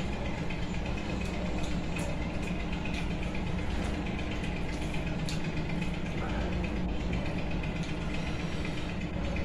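Steady machine hum with a few held tones, and faint soft clicks of fingers mixing rice against a ceramic bowl.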